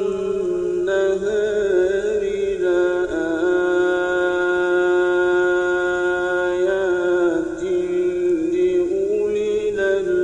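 A man's solo Quran recitation, chanted slowly and melodically with long ornamented vowels. About three seconds in he holds one note steady for several seconds, then slides into further turns.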